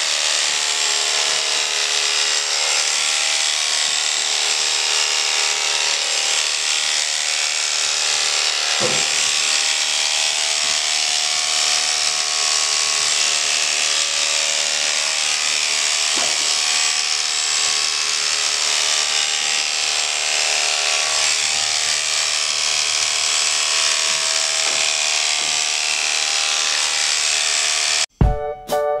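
Corded electric horse clippers buzzing steadily as they shave through a horse's coat. The buzz is cut off abruptly near the end by music.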